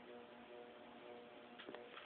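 Near silence: room tone with a faint steady hum and a light click near the end.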